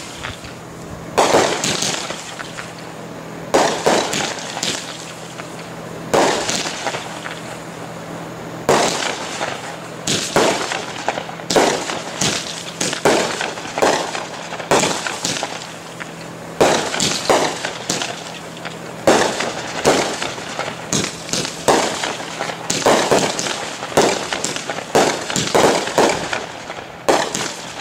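Consumer aerial fireworks, a multi-shot cake, firing a long run of shells. Each shot is a sharp launch and break, coming every second or two at first and faster in the second half.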